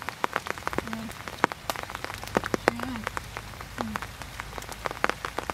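Wood campfire crackling: irregular sharp pops and snaps, several a second. A few short hummed 'mm' sounds from someone eating come in about a second in, near the middle and past the middle.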